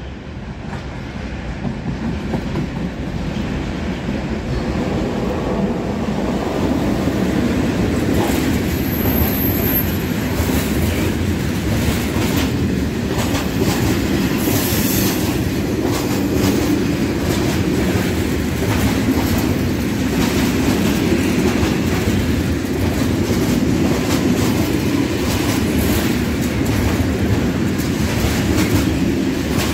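Freight train of tank wagons passing: the rumble grows louder over the first several seconds as it nears, then holds as a steady rumble with the wheels clattering over rail joints.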